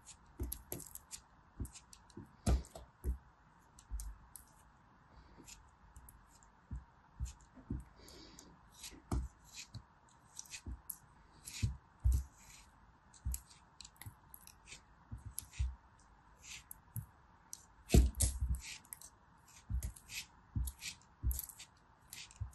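Craft knife cutting through packed kinetic sand: a long run of short, irregular crunches and crackles as the blade slices and crumbs break away, the loudest crunch about eighteen seconds in, over a faint steady hiss.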